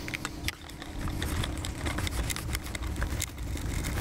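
Light metallic clicks and clinks as battery cable lugs are fitted over terminal posts and a wing nut is handled on lithium RV batteries, over a low steady rumble.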